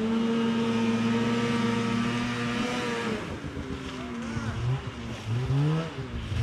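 Snowmobile engine holding steady revs for about three seconds, then dropping off, then revved up and down in several short blips near the end.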